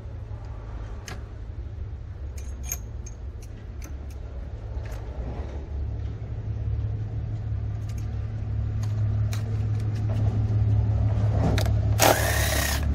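Low steady rumble with scattered light metallic clicks of tools being handled. Near the end a cordless power driver whirs briefly as it spins out a throttle-body bolt.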